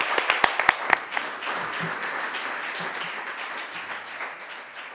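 Audience and panelists applauding, with a few loud single claps standing out in the first second; the applause dies away toward the end.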